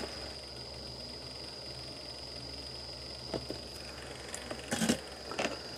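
Steady low hum with a faint, constant high whine, broken by a few light clicks, the sharpest nearly five seconds in.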